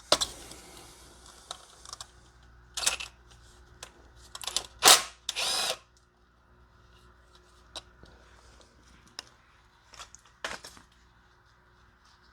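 Intermittent short clicks and rasps of hand work fastening clamps onto a loose wire to hold it off the drive belt, the loudest a half-second rasp about five seconds in.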